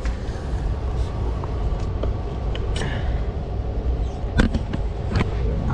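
Steady low rumble and hum inside an Indian Railways 3rd AC sleeper coach, with a few sharp knocks in the second half as things are handled at the berth.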